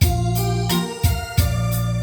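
Instrumental pop music: electronic organ-style keyboard chords over a drum kit, with a kick drum and cymbal about every 0.7 seconds.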